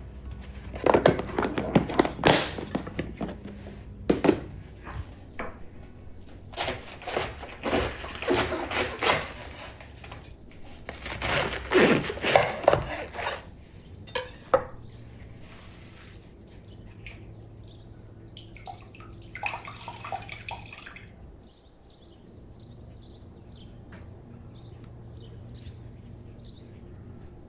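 Close kitchen handling sounds: bursts of clattering and rustling as fresh produce is handled and packed into plastic food-storage containers on a wooden cutting board. After about 21 seconds it quietens to faint, short high ticks.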